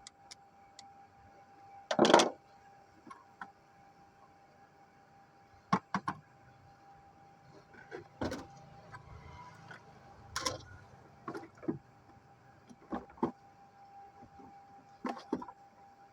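Irregular knocks and clicks, the loudest about two seconds in, over a faint steady hum.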